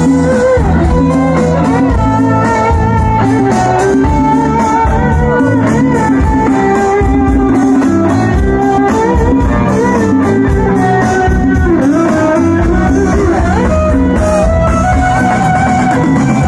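Live rock band playing loudly, with a lead guitar melody bending and gliding over drums and a stepping bass line, in an instrumental passage with no singing.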